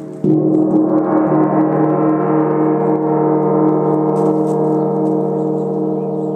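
Hanging gong struck once with a felt-headed mallet about a quarter second in. It rings with a dense stack of overtones that swells into a shimmering wash, then sustains and slowly fades.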